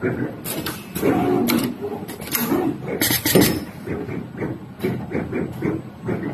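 Automatic double-end wire cutting, stripping, twisting and tinning machine running through its cycle: a rapid, irregular mechanical clatter broken by several sharp clicks.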